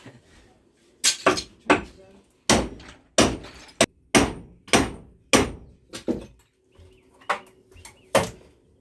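Hammer blows: about a dozen sharp strikes at an uneven pace, each dying away quickly.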